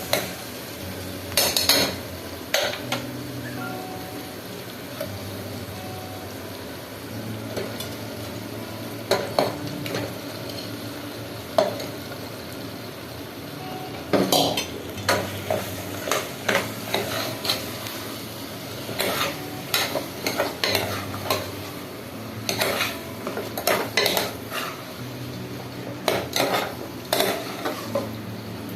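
A spoon stirring and scraping in a cooking pot, knocking against the pot again and again, with a light sizzle of frying in oil. The knocks come in quick clusters, more often in the second half.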